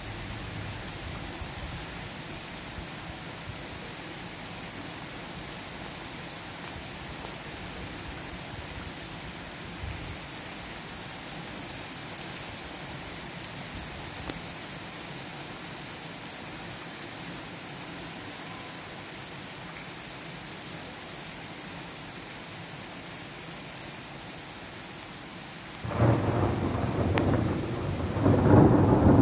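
Steady rain falling during a thunderstorm, then about 26 seconds in a loud crack of thunder breaks in and rumbles on, swelling louder again near the end.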